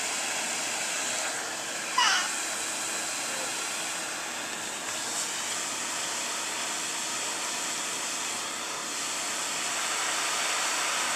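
Vacuum cleaner running with its hose wand open, giving a steady rushing hiss of air. About two seconds in there is one short, high rising squeak.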